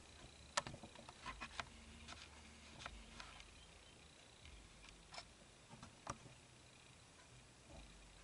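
Near silence broken by about ten faint, scattered clicks and taps of small handling noises.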